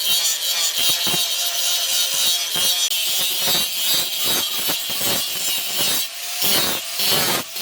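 Hand file rasping over a steel knife blade in rapid back-and-forth strokes, a few per second, with a faint metallic ring.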